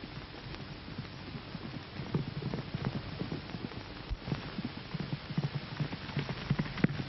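Hoofbeats of horses galloping: a quick, uneven drumming of hooves that grows louder about two seconds in, over a steady hiss.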